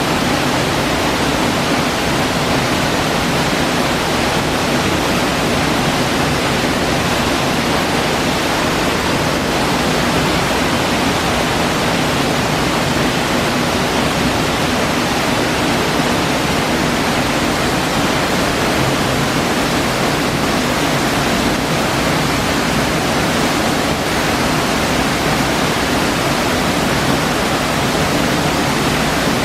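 Waterfall pouring into the glen: a loud, steady rush of falling water.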